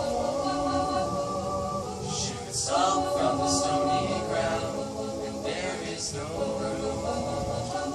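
Student a cappella choir singing, voices holding sustained chords in harmony without instruments.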